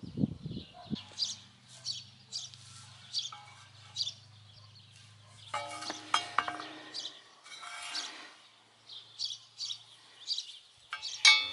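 Small birds chirping repeatedly, short high notes again and again. In the first second a steel hoe blade scrapes and thuds in the soil, and near the end comes one sharp metal clink.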